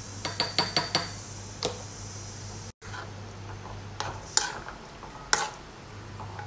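Metal spoon clinking against a metal kadai: a quick run of about five clinks about half a second in, then a few scattered knocks and scrapes as chicken pieces are stirred in water.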